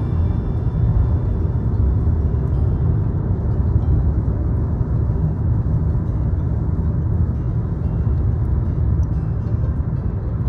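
Steady low road and engine rumble heard from inside a moving car at cruising speed.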